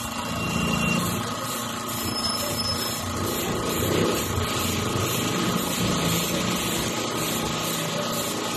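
Small airbrush air compressor running steadily, with the hiss of air spraying from the airbrush.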